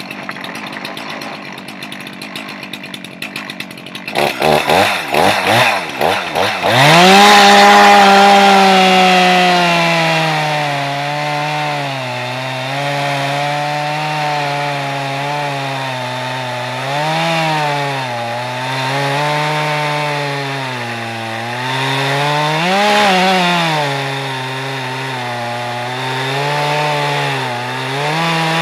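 Stihl MS 391 two-stroke chainsaw on a chainsaw mill with a rip chain. It idles, is blipped a few times, then goes to full throttle about a quarter of the way in. The pitch sags and keeps rising and falling as the chain rips lengthwise through the log.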